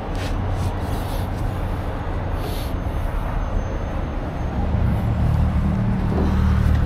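Heavy truck engine running with a steady low hum that grows louder and fuller about five seconds in.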